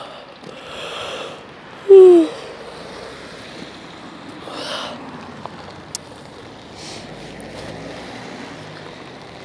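Rain and the hiss of cars passing on a wet road, with a few swelling swishes as vehicles go by. About two seconds in, a short voice-like sound drops in pitch; it is the loudest thing here.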